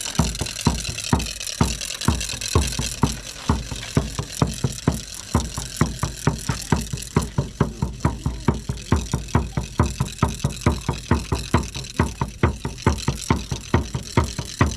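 Ritual noise-making: a drum beaten steadily and fast, about three to four beats a second, with a high ringing jingle over it that fades about halfway through.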